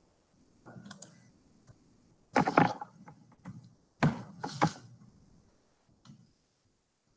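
Scattered clicks and knocks from computer keyboard and mouse use, with two louder clusters of knocks in the middle.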